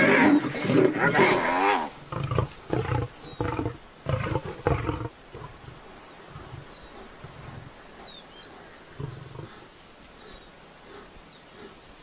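Lions snarling and growling as they attack a hyena: loudest in the first two seconds, then short, low growls until about five seconds in. After that only faint bird chirps and a high insect trill remain.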